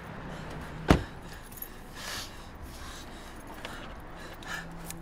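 Inside a car: one sharp knock about a second in, then quiet rustling and light clinking of something being handled, over a low steady hum.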